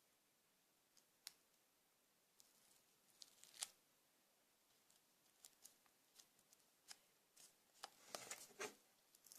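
Near silence broken by faint, scattered clicks and snips from scissors, sticky tape and paper being handled, a little busier near the end.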